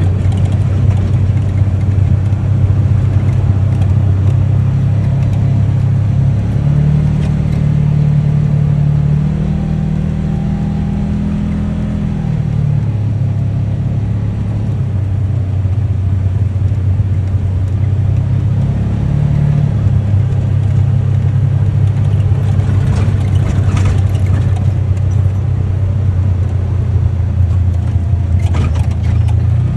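UTV engine running under way, its pitch rising as it speeds up about a quarter of the way in, dropping back after a few seconds, and rising briefly again near the middle. A few short rattles come in the later part.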